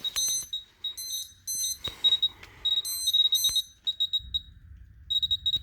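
Electronic lightning detectors beeping rapidly and irregularly as they register strikes from a severe thunderstorm. A short, high single-pitch chirp repeats several times a second, mixed with bursts of a second, shriller alarm beep and a few sharp clicks.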